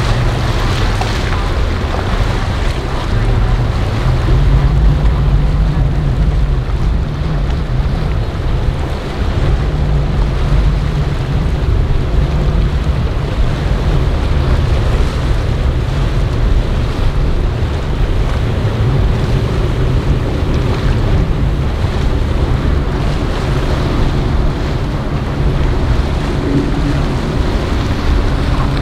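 Flybridge motor yacht running at speed through choppy inlet water: a steady low engine drone mixed with the rush of its bow spray, wake and waves. Wind buffets the microphone throughout, and a faint engine hum comes through more clearly near the end.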